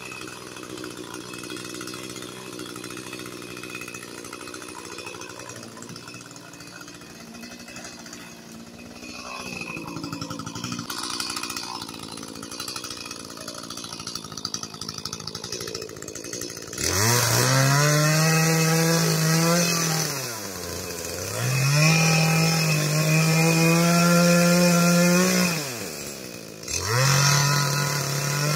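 Two-stroke chainsaw running low and quieter, then revved hard about two-thirds of the way in. It is held at high revs for a few seconds, let back down, and revved up again, three times in all.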